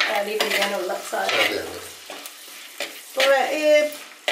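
Steel spoon stirring and scraping split moong dal as it fries and sizzles in hot coconut oil in a black clay pot, roasting it for a tempering. The stirring comes in repeated scrapes, some with a squeaky pitched edge, loudest about three seconds in.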